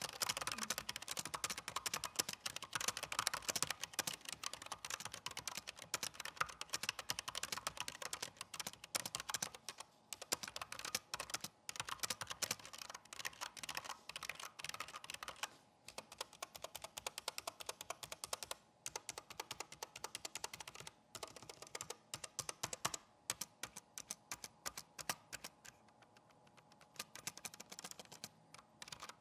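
Typing on a Razer DeathStalker V2 Pro TKL low-profile keyboard with linear red optical switches damped by silicone: a quiet, fast run of keystrokes with a few short pauses.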